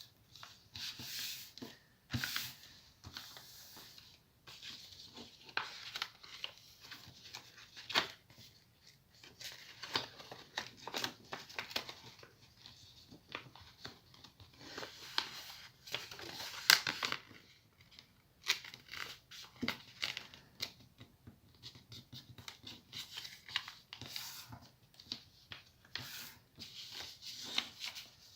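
Paper being handled and folded by hand: irregular rustles and crinkles with sharp creasing clicks.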